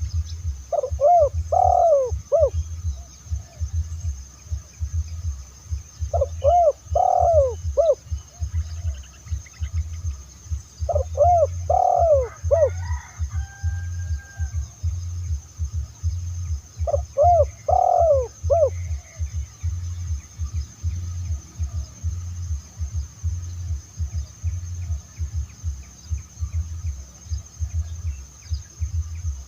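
Spotted dove cooing: four phrases about five seconds apart in the first two-thirds, each a short run of rising-and-falling coos. A steady low pulsing throb and a thin high whine run underneath.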